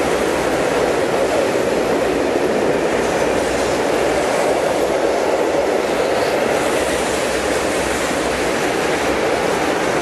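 Freight train of tank wagons rolling past close by: a steady, even sound of steel wheels running on the rails.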